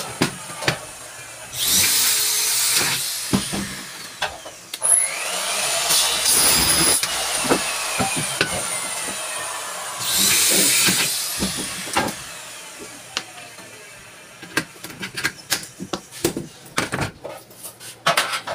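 Cordless drill run in three short bursts against the corner of an aluminium cabinet door frame, each burst rising in pitch as the motor spins up. Between and after the bursts come light clicks and knocks, thickest near the end, as the aluminium frame is handled.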